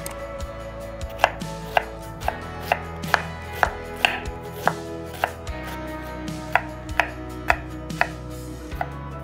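Chef's knife dicing an onion on a wooden cutting board: sharp knife strikes against the board, about two a second, starting about a second in. Background music runs underneath.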